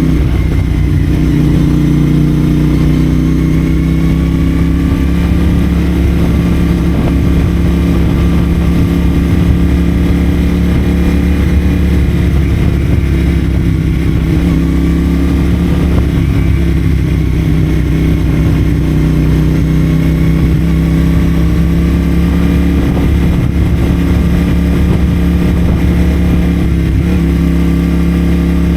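CFMoto 450SR's parallel-twin engine breathing through a Yoshimura AT2 slip-on exhaust, cruising at fairly steady revs under way.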